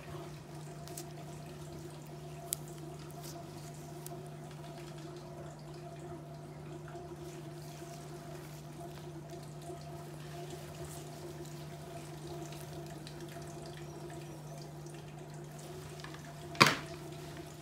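Ultrasonic dental scaler running, a steady hum over a hiss like running water spray. There is one short, sharp, loud noise near the end.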